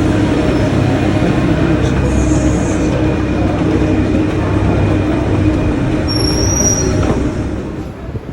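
Rail car in motion, a steady rumble with a brief high wheel squeal about six seconds in.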